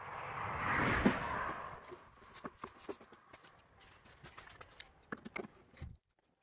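Large adjustable spanner being worked on a tractor steering wheel's top nut: a rustle with a sharp knock about a second in, then scattered light metal clicks and taps.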